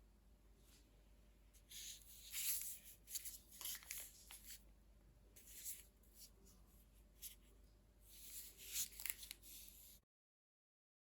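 Faint rustling and scraping, as of hands handling something, in two bouts of short hissy strokes, then the sound cuts off abruptly near the end.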